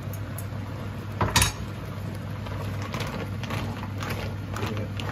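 A sharp knock about a second and a half in, then a wooden spoon stirring mussels and clams in a simmering cream sauce in a frying pan, the shells clicking and scraping against each other and the pan. A steady low hum runs underneath.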